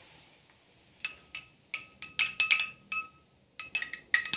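Long thin metal stirrer clinking against the inside of a drinking glass as a drink is stirred. A few scattered clinks at first, turning into quick, steady clinking near the end.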